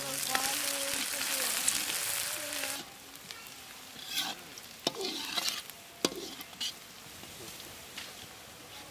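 Sliced onions sizzling loudly in hot oil in a metal wok, just after going in, with a metal spatula stirring them. About three seconds in the sizzle drops to a quieter frying, broken by a few sharp scrapes and clicks of the spatula on the pan.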